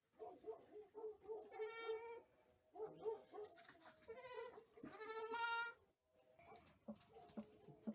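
Chios sheep bleating in the pen: three high-pitched bleats about two seconds apart, the last the loudest, over fainter calls from the rest of the flock.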